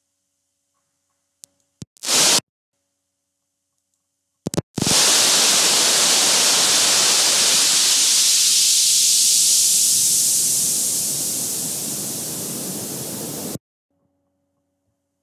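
Loud rushing hiss: a short burst about two seconds in, then a long stretch of about nine seconds that grows thinner in its lower part and cuts off suddenly.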